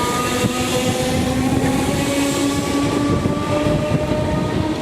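Train running through the station, its steady whine rising slightly in pitch, with heavy wind buffeting the microphone.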